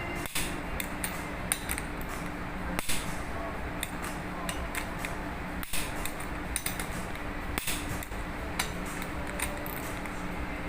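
Scattered metallic clicks and clinks of a torque wrench and hand tools on the fuel pump as its fixing bolts get their final 150 Nm torque, over a steady machinery hum.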